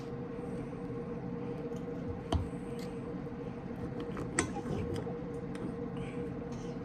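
Knife and fork cutting chicken breast on a china plate: soft squishing, with scattered clicks of metal on the plate and two louder ones about two and four seconds in, over a steady background hum.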